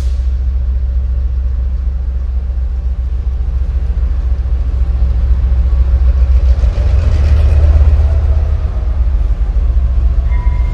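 Loud, steady low rumble of a large vehicle running, swelling about six to eight seconds in, with a faint falling tone near the swell.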